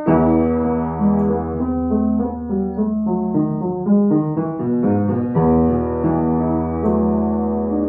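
Scholze upright piano played solo in a classical piece: a line of struck notes and chords over sustained deep bass notes, with a new low chord struck about five and a half seconds in.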